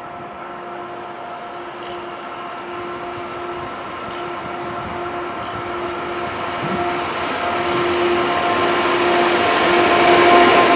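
Electric multiple unit train approaching along the platform. A steady electric whine from its traction drive grows louder throughout, together with rising wheel and rail noise.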